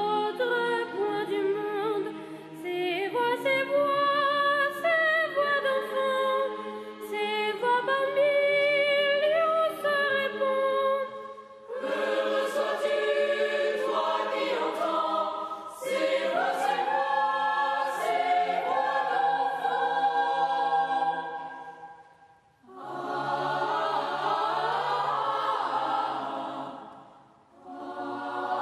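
French boys' choir singing a cappella: a boy treble soloist carries the melody over softly held choir notes in the first part, then the full choir sings in harmony, with brief breaths between phrases.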